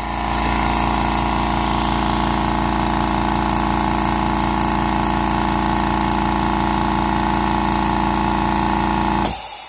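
California Air Tools 2010A oil-free air compressor running steadily as it fills its tank. Near the end the motor stops abruptly and a short sharp hiss of air follows: the pressure switch cutting out at full pressure, about 120 psi, and the unloader valve venting.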